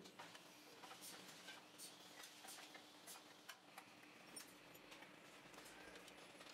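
Faint, scattered metallic clicks of an open-end spanner being fitted to and worked on the exhaust flange nuts of a Greaves diesel engine, over a faint steady hum.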